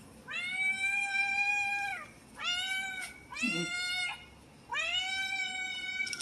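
Tabby cat meowing four times in a row: long, drawn-out meows, with two shorter ones in the middle.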